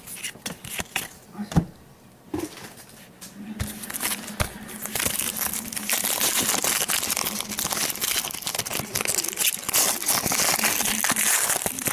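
Trading-card pack wrapper being handled and torn open: a few sharp clicks and rustles, then from about three and a half seconds in, dense crinkling.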